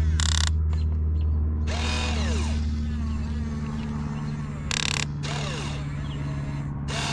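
Huina 1592 RC excavator's electric gear motors whirring steadily, with a few short rasping bursts as the metal bucket digs and moves soil.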